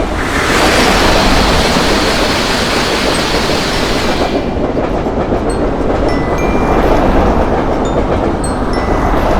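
Train running past on the rails: a steady rumble of wheels on track, with a louder hiss over it for the first four seconds or so.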